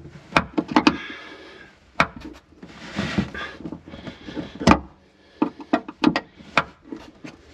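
Metal socket wrench clicking, tapping and scraping against a boat cleat's nut and bolt under the deck, a string of sharp separate clicks and knocks with one stronger knock near the middle. The 11 mm socket is being tried on the nut and doesn't fit.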